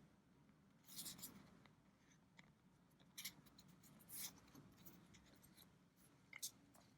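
Faint handling of trading cards: four brief, soft swishes as cards slide against one another.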